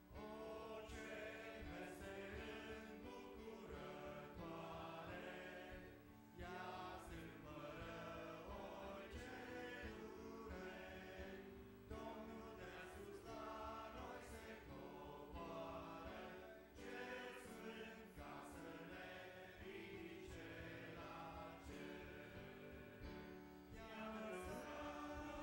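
A church congregation singing a Romanian hymn together, faintly.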